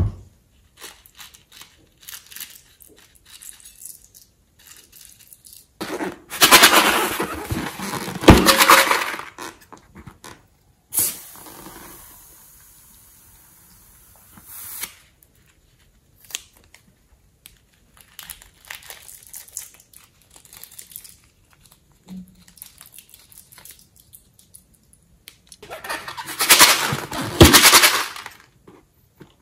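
Close-up hand-handling noise: crackly crinkling and rubbing in two loud stretches, one a few seconds in and one near the end, with scattered light taps and clicks between.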